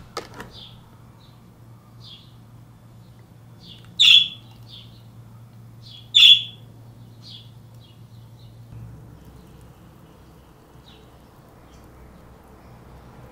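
Birds chirping in short, scattered calls, with two much louder calls about four and six seconds in, over a low steady hum that stops about two-thirds of the way through.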